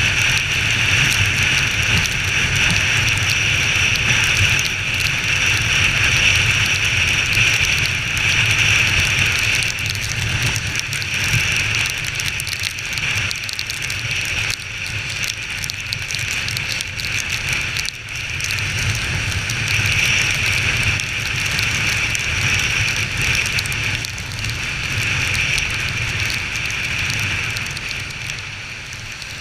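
Honda XR 250 Tornado's single-cylinder four-stroke engine running steadily underway, with heavy rain and wind hissing and crackling over the low engine rumble. It gets a little quieter near the end.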